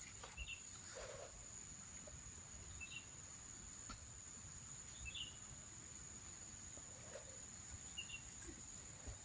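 Insects singing in a steady high-pitched drone, with short bird chirps about four times, a couple of seconds apart.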